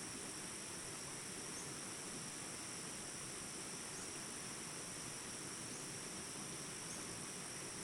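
Mountain river rushing over rocks in a steady, even flow, with a steady high-pitched insect chorus over it.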